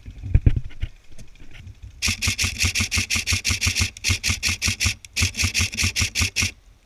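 Airsoft rifle firing on full auto: two long bursts of rapid, evenly spaced shots about two and five seconds in, each shot a sharp crack over the whir and clack of the gun's mechanism, with a brief burst at the very end. A few dull thumps come in the first second.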